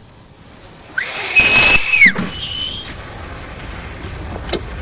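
A person's loud, piercing whistle, rising into one high note held for about a second, then a shorter, fainter wavering whistle right after. A whistle like this is the sort used to call someone from a distance.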